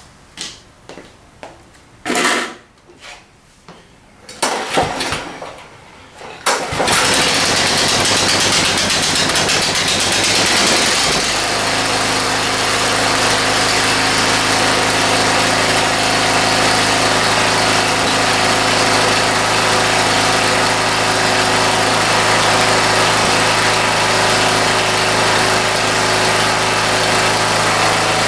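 Kawasaki FB460V single-cylinder mower engine being pull-started from cold with its freshly cleaned carburetor. It catches on the second pull about six seconds in, runs a little unevenly at first, then settles to a steady, even run about eleven seconds in. This shows the previously non-running engine is now running real nice.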